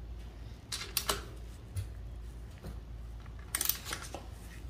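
Ratcheting socket wrench clicking in two short runs, about a second in and again near the end, as it tightens a bicycle's front axle nut.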